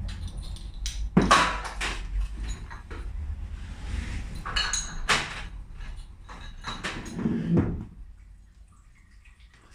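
Knocks and clatter of homebrew bottling equipment being handled and set down, with two loud sharp strikes, about a second in and about five seconds in, and handling noise between.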